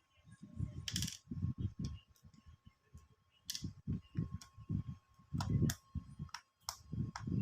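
Tools and metal parts being handled during a heater repair: sharp metal clicks and clinks several times over low, muffled thumps of handling.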